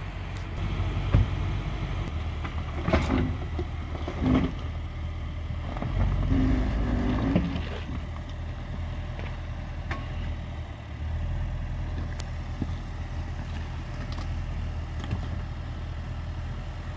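Range Rover Sport engine idling steadily, with a few short knocks in the first few seconds.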